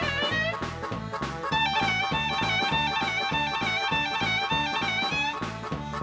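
Dance music with a steady, quick beat; a melody of held notes enters about a second and a half in.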